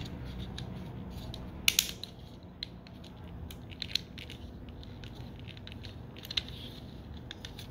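Plastic parts of a Transformers Legacy United Sandstorm figure clicking and rattling as they are handled and pushed into place. There are scattered small clicks, the sharpest pair about two seconds in, over a low steady hum.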